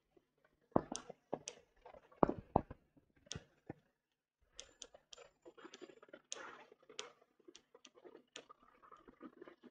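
Chalk writing on a blackboard: irregular sharp taps and short scratches as the chalk strikes and drags across the board, the loudest taps about a second in and again around two and a half seconds.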